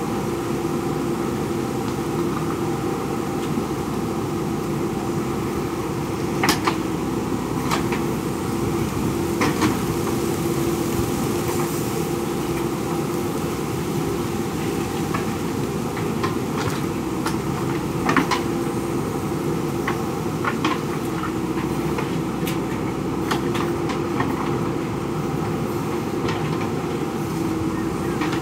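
JCB backhoe loader's diesel engine running steadily under work, with a few sharp metallic knocks from the machine.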